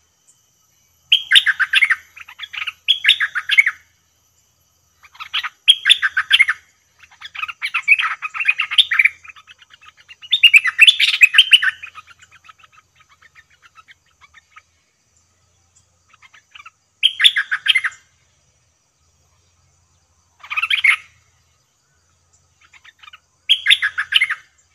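Bulbul (nok dok taeng, merbah lekir) singing a string of short, rapid chattering phrases, each about a second long, with pauses of a second or more between them.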